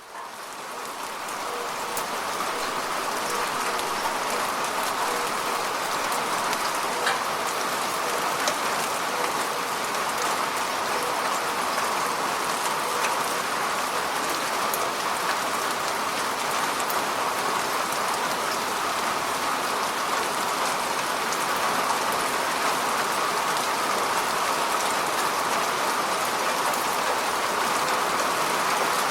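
Steady falling rain: a dense, even hiss with scattered sharper ticks of single drops. It fades in over the first couple of seconds.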